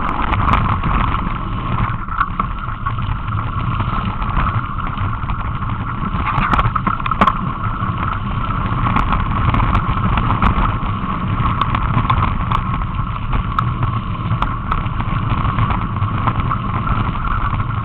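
Mountain bike riding along a trail: a steady rumbling, rushing noise with scattered clicks and rattles.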